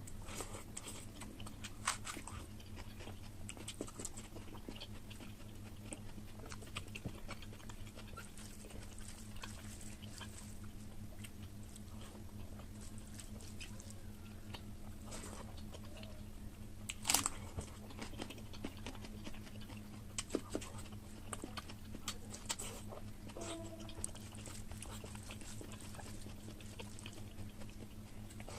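Close-up chewing and biting of oily mutton curry: irregular wet clicks and smacks, with one louder crunch a little past halfway, over a faint steady hum.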